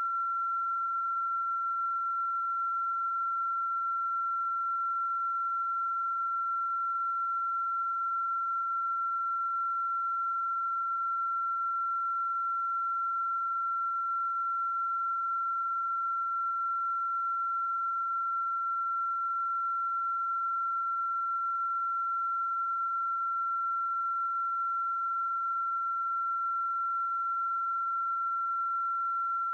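A steady, unbroken high-pitched electronic tone held at one pitch, with no change in pitch or loudness.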